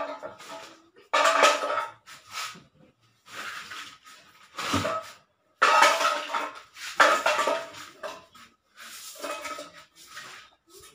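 Large aluminium cooking pot being scraped in a series of about eight irregular strokes, each around a second long, with the pot ringing at the same few tones in every stroke.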